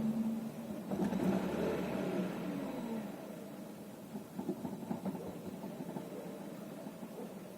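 Ford Zetec-E 2.0 litre four-cylinder engine running, its revs falling back over the first few seconds, then running lower with irregular knocks. The knocking comes with strong vibration felt in the cabin and steering wheel, a fault the owner cannot explain.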